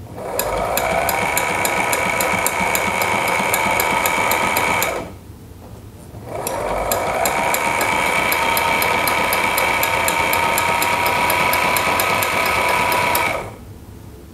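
Sailrite LSZ-1 Ultrafeed portable walking-foot sewing machine stitching a strip of piping in two runs, with a pause of about a second between them. Each run starts with a motor whine rising as it comes up to speed, over steady clicking of about five stitches a second.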